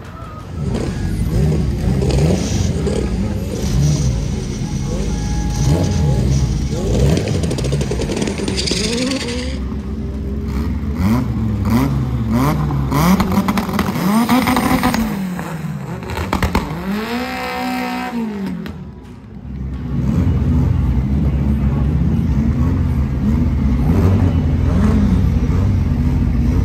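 Drag-race car engines revving in repeated quick blips, the pitch rising and falling each time. About two-thirds of the way in the sound dips briefly, then a loud steady engine note sets in with further revs over it.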